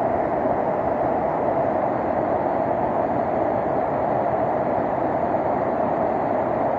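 Waterfall's steady, muffled roar of falling water, with little treble.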